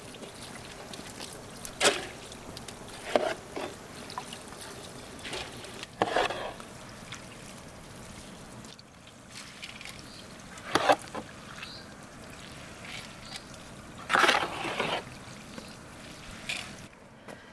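Metal ladle scooping wet rice out of an aluminium basin of starchy water and tipping it into a perforated strainer, with water trickling and dripping. A short scrape and splash comes with each scoop, roughly every two to four seconds.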